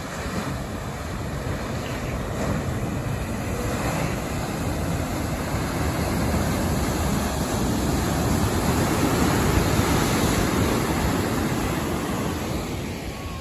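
Ocean surf: waves breaking and whitewater washing in, a steady hiss of noise that swells to its loudest a little past the middle and eases off near the end.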